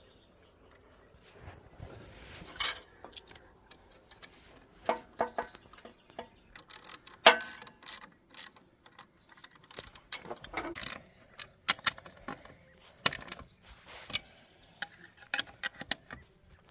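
Irregular metal clicks and clanks from hand tools and parts being handled during mower repair work.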